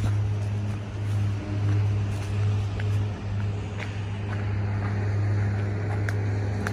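An engine running steadily nearby, a constant low hum that dips briefly a few times, with a few faint sharp ticks.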